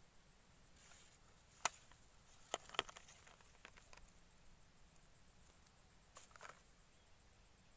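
Faint steady chirring of insects, broken by a few sharp clicks and taps as a small fish is swung in on a fishing pole and taken in hand: three loud clicks about two seconds in and a short run of softer taps about six seconds in.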